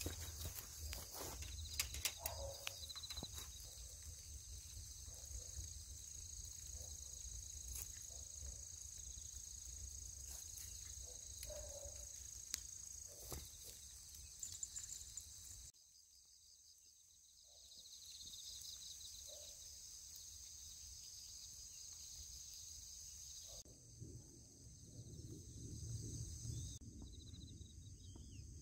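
Insects chirping and trilling in high, steady tones, over a faint low rumble, with scattered clicks and taps through the first half.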